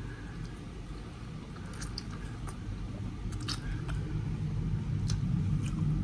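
Close-up eating sounds: chewing and sucking in forkfuls of pancit canton noodles, with scattered small wet mouth clicks. A low rumble rises in the background in the second half.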